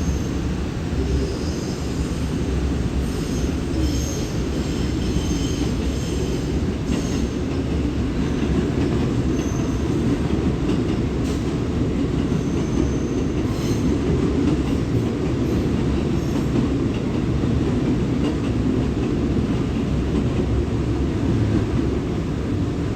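A train moving through a station with a steady low rumble; thin high-pitched squeals from the wheels or brakes come and go over the first half.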